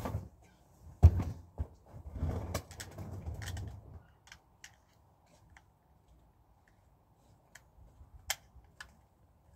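Irregular clicks and knocks: a loud knock about a second in, a low rumbling stretch with more knocks from about two to four seconds, then sparse faint ticks, with a few sharper clicks near the end.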